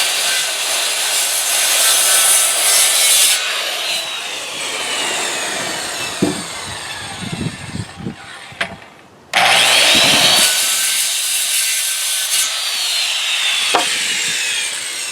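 Circular saw cutting through a wooden 4x4 post in two passes: each time the motor whines up to speed, cuts, and whines down as it is released. The second pass comes a few seconds after the first, from the other side, because the blade does not reach all the way through the post; a few knocks come between the cuts.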